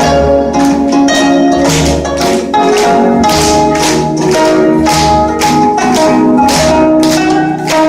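Gayageum, the Korean plucked zither, playing a lively piece: many quick plucked notes that ring on, over a regular low beat.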